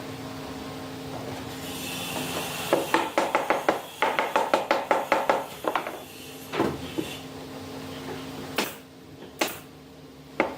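A fast run of sharp knocks on wood, about six a second, like hammering, over a steady low hum. A few single loud knocks follow near the end.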